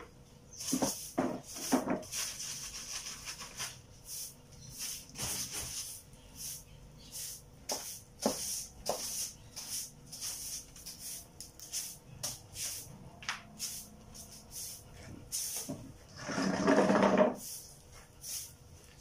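A soft broom sweeping a concrete floor in short, irregular swishing strokes, with a few light knocks. Near the end there is a louder, lower sound lasting about a second.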